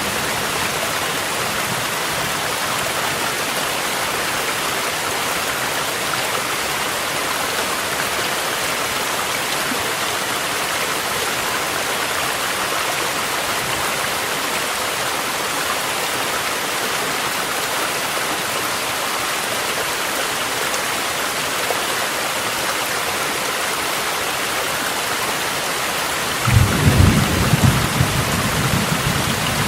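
Steady rain and rushing mountain-stream water making a continuous even hiss, with a rumble of thunder rolling in near the end.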